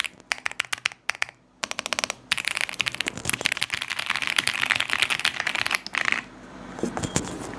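Typing on an Epomaker QK81 gasket-mounted mechanical keyboard as a sound test. A few separate keystrokes, a short pause, then about four seconds of fast continuous typing, then slower keystrokes near the end.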